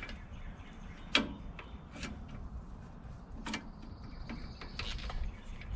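A few sharp metal clicks and scrapes, roughly one a second, as a hooked seal remover is worked up into a transmission's tail-shaft output seal, feeling for a grip behind the seal's lip.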